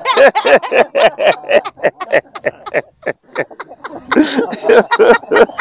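Laughter: a long run of short, quick giggles and chuckles, thinning out briefly around the middle before picking up again.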